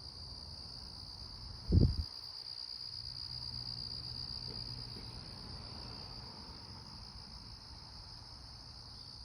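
Steady, high insect chirring, like crickets, throughout. Just before two seconds in there is one brief low thump, the loudest sound.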